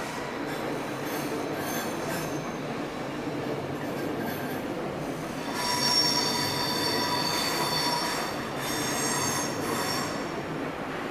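Double-deck electric train rolling over curved points and track, its wheels squealing in several high tones on the curves, faintly at first and loudly from about halfway through, with a brief dip before the end; a steady rolling rumble runs underneath.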